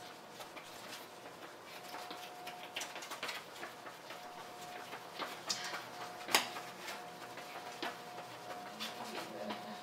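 Scattered soft taps and scuffs of a dancer's sneakers on a hard floor as she moves slowly, irregular and quiet, with one sharper knock about six seconds in. A faint steady hum runs underneath.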